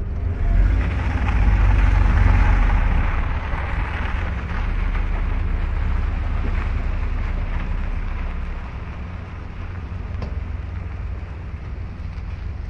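Wind buffeting the microphone over the running noise of a vehicle on the move: a heavy, steady low rumble with a hiss, easing off slightly after about eight seconds.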